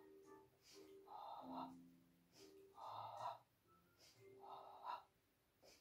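A woman's faint, forceful breaths, about one every second and a half, in time with a Pilates abdominal exercise.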